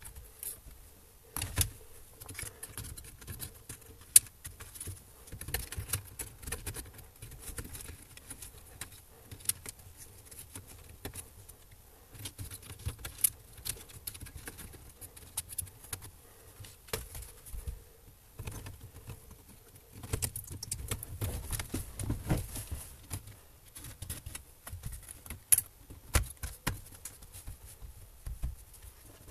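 Hands working on an opened laptop: scattered clicks, taps and rustles of plastic and metal parts as cables are routed through the chassis and the motherboard is laid into the base.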